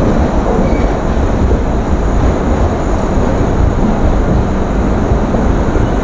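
Express train running along a station platform as it pulls in: a loud, steady low rumble of wheels and coach, heard from the coach's open doorway.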